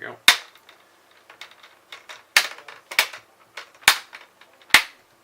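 Plastic bezel clips of a Lenovo Y40 laptop screen snapping into place one after another: a series of sharp clicks, five loud ones roughly a second apart with fainter clicks between.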